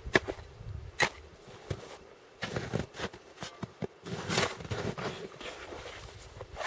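Axe chopping into river ice: two sharp blows in the first second, followed by crunching, scraping sounds of ice chips and snow being shovelled out of the hole.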